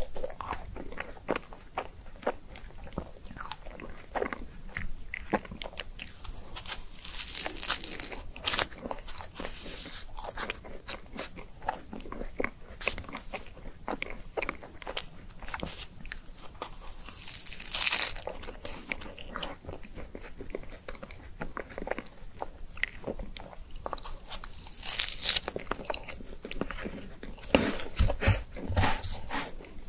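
Close-miked eating of a small strawberry ice cream cone: irregular bites and crisp crunches of the wafer cone with wet chewing in between, a few crunches louder than the rest.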